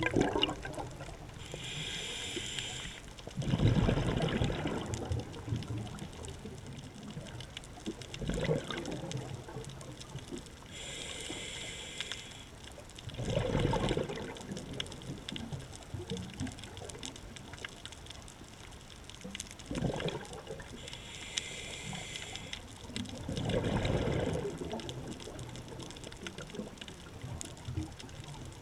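Scuba diver breathing through a regulator underwater: three slow breaths about ten seconds apart, each a short hissing inhale followed by a louder gush of exhaled bubbles. A small burst of bubbles comes between breaths.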